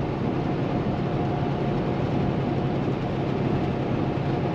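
Steady drone inside the cab of a 2016 Kenworth T680 semi truck cruising at highway speed: its PACCAR MX-13 diesel engine and road noise, with a thin steady whine above them.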